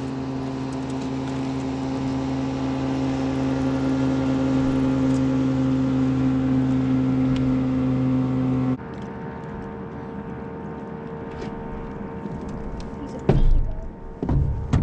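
Small outboard motor on a jon boat running steadily under way. About nine seconds in, the sound switches abruptly to a quieter, steady motor hum, and two loud thumps come near the end.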